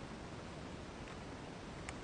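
Steady hiss of recording noise with one sharp click near the end.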